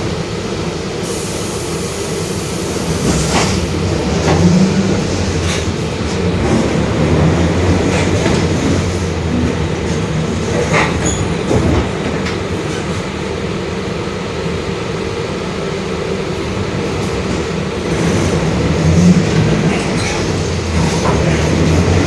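Mercedes-Benz OF-1721 Bluetec 5 bus driving, its diesel engine and driveline running with a steady low drone that the title puts down to the differential droning. The drone swells about four seconds in and again near the end, over scattered clicks and rattles.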